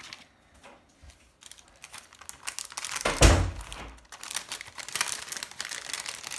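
Crinkling and crackling of a clear plastic sheet of stick-on gems being picked up and flexed in the hands, with a loud rustle and thump a little past the middle.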